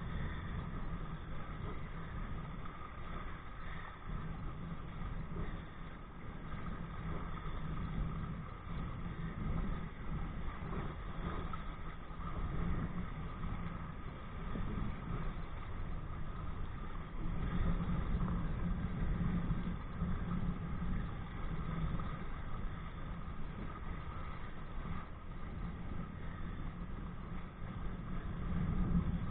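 Steady rushing and low rumbling of wind and water on a body-worn camera on a kite-pulled kayak, swelling louder about two-thirds of the way through and again near the end.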